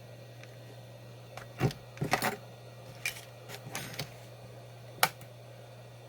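Metal test probes and small tools clicking and tapping against a laptop motherboard, about half a dozen sharp clicks, over a steady low hum.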